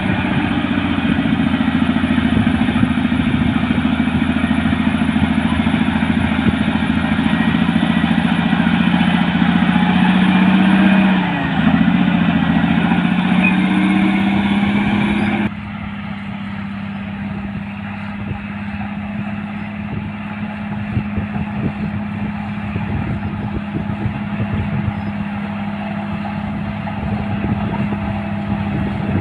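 Caterpillar D6R bulldozer's six-cylinder diesel engine running steadily under work, its pitch dipping briefly and recovering a little before halfway. About halfway the sound changes abruptly to a quieter, steady engine note.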